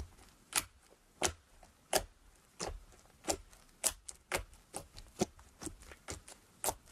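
Fingertips poking into thick slime, each poke giving a sharp wet pop or click as air is squeezed out. A dozen or so pops, coming a little faster toward the end.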